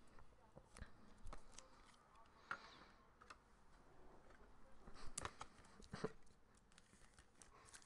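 Near silence with faint, scattered clicks and taps of trading cards being handled on a table.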